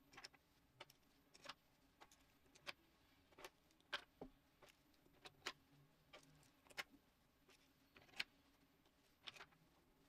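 Light, sharp clicks and taps of 3D-printed plastic parts being fitted together: vault bolts and their linking arms set into the track and pressed onto the central cog's pins. The clicks come irregularly, a couple a second.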